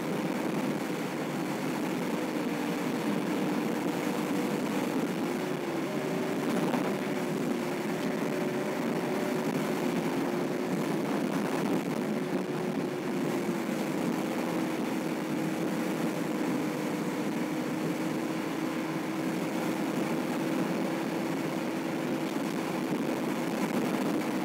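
Car engine and tyre noise heard from inside the cabin while cruising at a steady speed: a constant drone whose pitch shifts slightly a few times.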